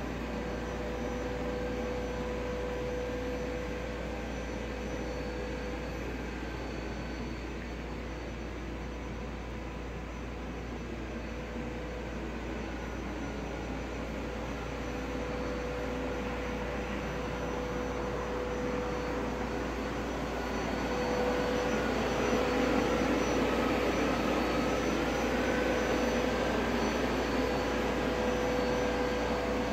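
Steady mechanical drone with a constant hum tone over a low rumble; a broad rushing noise swells about two-thirds of the way through, with a fainter higher tone that dips and comes back up near its peak.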